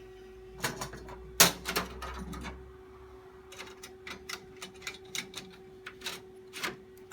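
Irregular sharp clicks and knocks of metal and plastic parts being handled in a server's drive bay, the loudest about a second and a half in, over a steady hum from the running server.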